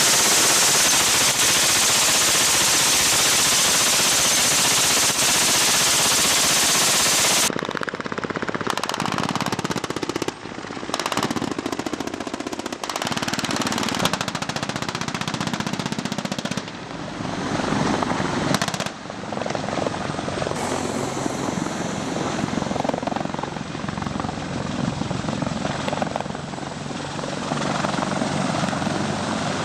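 Heavy military helicopter noise and automatic-weapons gunfire, in several abruptly cut segments. The first seven seconds or so are a steady, loud rushing noise. After that the sound switches suddenly several times between stretches with sharp reports and stretches of running aircraft noise.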